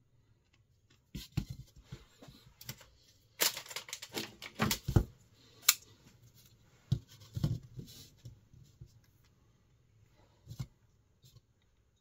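Kershaw 2032 Esteem slipjoint pocket knife being worked by hand: sharp clicks of the 8Cr13MoV blade snapping into its double-detent stops as it is opened and closed, with small scrapes of handling in between. The clicks come in clusters, with one especially sharp snap about halfway through.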